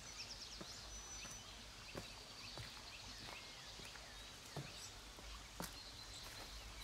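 Irregular footsteps crunching on dry leaf litter and roots of a forest path, over a steady low background hum. Small birds chirp and whistle high above the steps.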